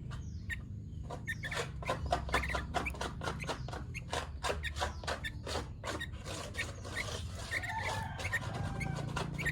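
Sooty-headed bulbul (kutilang) calling: a rapid run of short chirps and clicks, with a few brief whistled notes and two faint gliding tones near the end, over a steady low hum.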